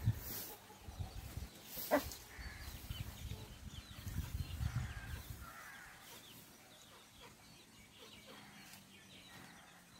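Faint calls of a hen and her chick, with short high chirps scattered through and one sharper call about two seconds in, over a low rumble that dies away about halfway.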